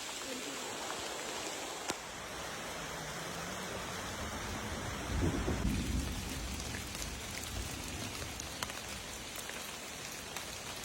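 Steady rain falling, with scattered drops ticking. About five seconds in, a low rumble of thunder swells for a second or two and fades.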